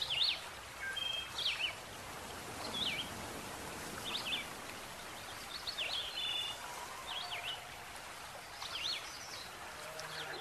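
Birds chirping in short repeated calls, roughly one every second, each a quick up-and-down sweep, over a steady hiss.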